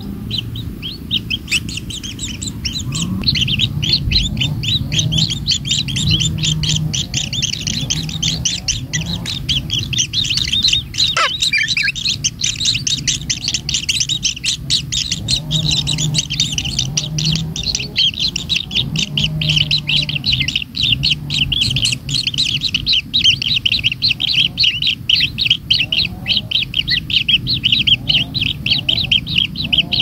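Kingfisher nestlings begging in the nest burrow: a dense, fast stream of high chirps that starts about a second in and keeps going, while a parent feeds them a lizard. A low hum comes and goes underneath.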